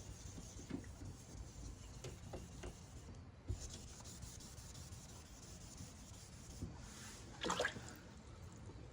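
Faint rubbing of wet sandpaper on a van's paintwork, levelling a raised touch-up paint fill in a scratch down flush with the surrounding paint. There is one louder stroke about seven and a half seconds in.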